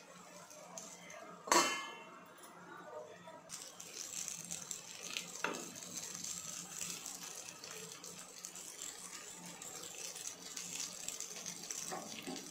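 Egg-filled capsicum rings frying in a pan and being turned with a slotted spatula. The spatula clinks sharply against the pan about a second and a half in and again around five and a half seconds, and a steady sizzle of frying runs from about three and a half seconds on.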